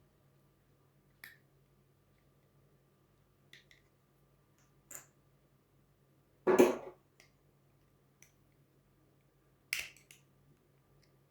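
Short plastic clicks and snaps from a Smart #1/#3 key fob's plastic case being handled and opened for a battery change. There are about six, spread out, with the loudest, a heavier knock, about six and a half seconds in.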